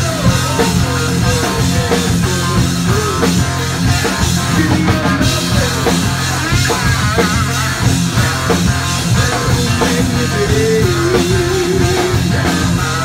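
Blues-rock band playing live: a lead line with bends and vibrato over electric guitar, electric bass and a drum kit keeping a steady beat.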